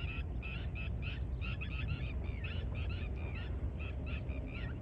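Many birds chattering, a dense run of short, quick calls, some sliding up or down in pitch, over a steady low rumble.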